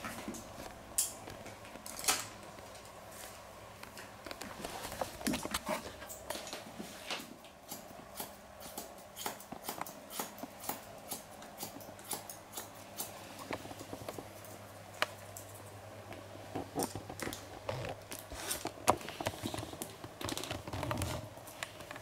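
Hairdressing scissors snipping dry hair: a run of sharp, irregular clicks, often several a second.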